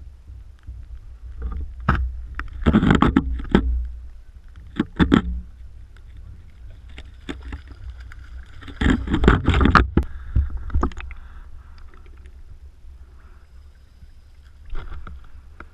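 Water splashing in several bursts as a person in boots wades and stomps through shallow river water, loudest about three and nine seconds in, over a steady low rumble.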